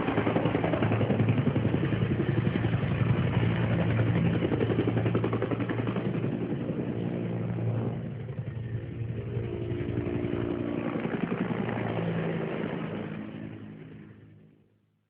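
Helicopter sound effect: fast, even rotor chop over a steady engine tone, dipping briefly about halfway and fading away near the end.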